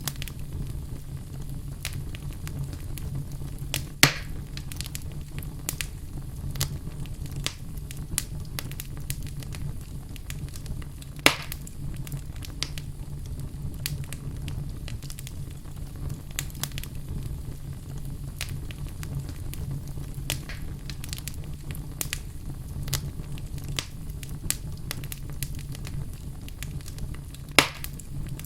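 Wood fire burning in a fireplace: a steady low rumble of flames with scattered crackles, and three loud sharp pops about four, eleven and twenty-seven seconds in.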